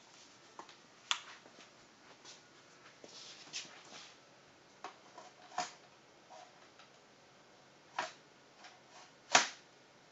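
Handling noise from an airsoft RPG-7 being loaded: scattered clicks and knocks as the launcher tube and its shell are moved and fitted together, with a sharp knock about a second in and the loudest knock near the end.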